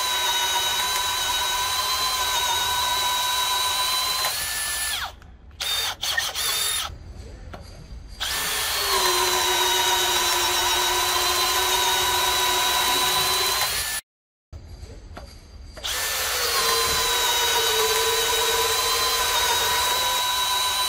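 Makita cordless drills boring into a wooden beam with a 26 mm auger bit. Three long runs of steady motor and gearbox whine, broken by a few short blips and abrupt cuts between runs.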